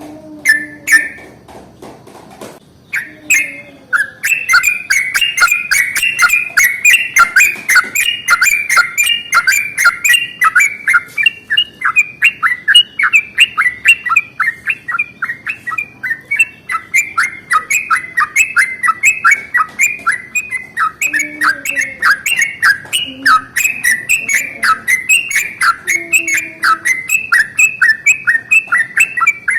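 Sooty-headed bulbul (trucukan) singing: a couple of short calls, then from about four seconds in a long, unbroken run of rapid chattering notes, the extended rolling song that keepers call a long 'ropel'.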